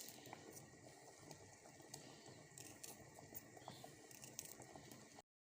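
Near silence with faint, scattered clicks of a knife slicing garlic cloves on a board; the sound cuts off abruptly near the end.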